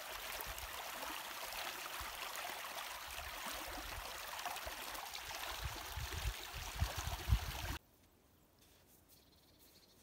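Small stream rushing and splashing over its bed, a steady watery hiss, with a few low bumps near the end. It cuts off suddenly to near silence about eight seconds in.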